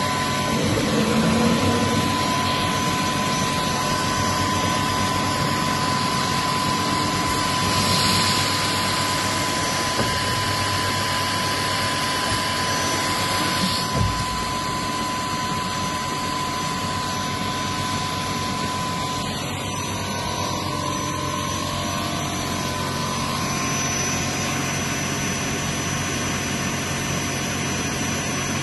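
Haffner DGS 187 double mitre saw running, its 500 mm blades spinning at speed: a steady machine whine over a broad rushing noise, brighter for a few seconds in the middle, with a single short knock about fourteen seconds in.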